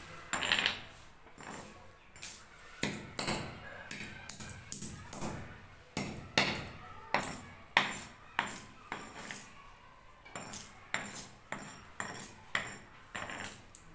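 A hammer striking and crushing a plastic computer mouse: a run of sharp, uneven blows, roughly two a second, each with a brief crackle of breaking plastic.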